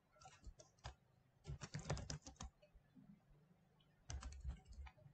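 Typing on a computer keyboard: three short bursts of quick keystrokes with brief pauses between them.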